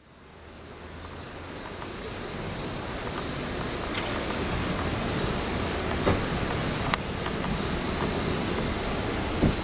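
Steady outdoor background noise with a low rumble, fading in over the first two seconds. A few sharp clicks or knocks stand out around the middle and near the end.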